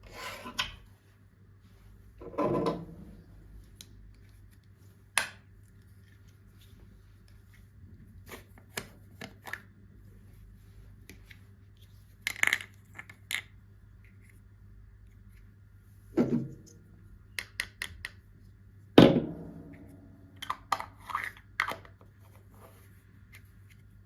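Toys and packaging handled and set down: scattered light clicks and taps, with a louder knock about two seconds in and two more in the latter half, the last ringing briefly.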